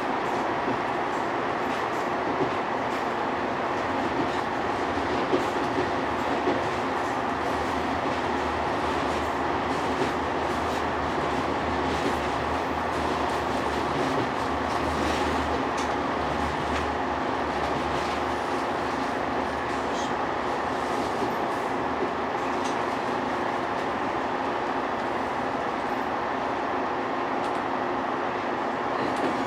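Running noise heard inside a KiHa 187 diesel railcar: a steady rumble with wheels clicking over rail joints.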